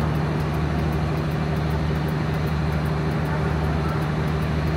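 A vehicle engine running with a steady low drone that holds one pitch, over a wash of traffic noise.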